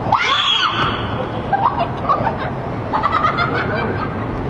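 People laughing.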